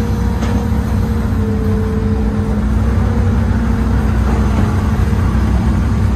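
Old Hitachi hydraulic excavator's diesel engine running steadily under work, heard from inside the operator's cab as a loud, even, low drone with a steady hum over it.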